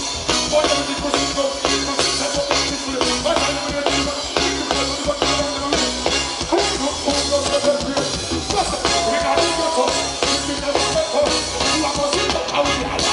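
Live reggae music played loud, with a steady drum-kit beat.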